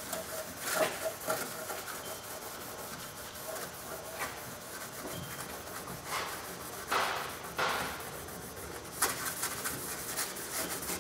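Hand scuffing of a steel pickup hood's underside with an abrasive: irregular rubbing strokes across the metal, a few of them louder, about a second in and again around seven to nine seconds.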